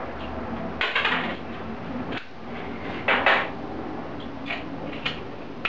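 Handling noise of small metal parts and screws: light clinks and clicks, with two short, louder scraping rustles about a second in and about three seconds in.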